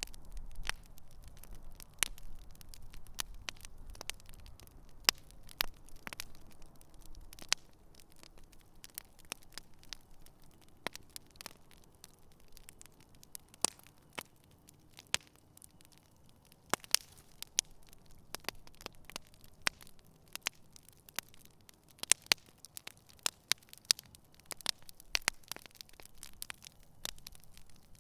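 Wood campfire burning, crackling with irregular sharp pops over a faint hiss. A low rumble fades out over the first few seconds.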